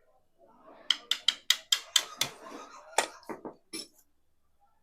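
A quick run of about ten sharp metallic knocks and clinks over some three seconds, as a Hero Splendor engine's crankcase is taken apart.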